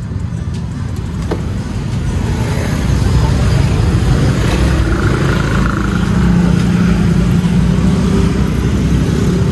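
Busy street traffic close by: engines of passing cars and motorcycles running, building up over the first few seconds and then holding steady with an engine hum. A couple of faint clicks come in the first second or so.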